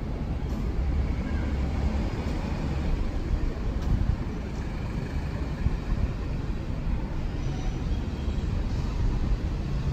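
Steady low rumbling outdoor background noise, with no distinct events.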